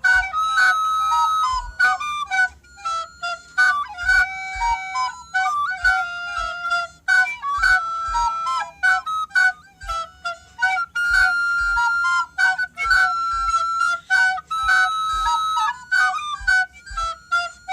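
A flute melody of short and held notes, repeating over a beat with a deep kick drum.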